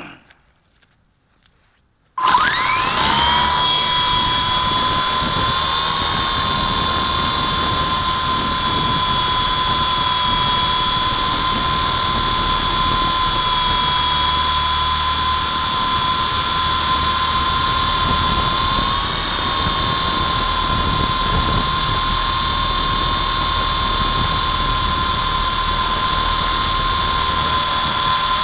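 WLToys V912 RC helicopter's electric motor and rotor spinning up about two seconds in, the whine rising in pitch and then holding steady in flight, heard from on board.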